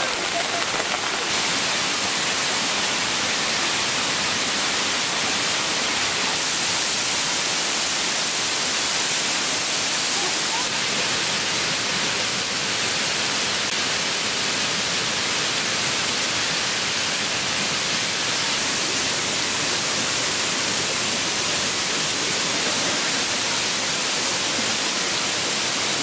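Steady rushing of a forest stream and waterfall, an even hiss of running water with no breaks.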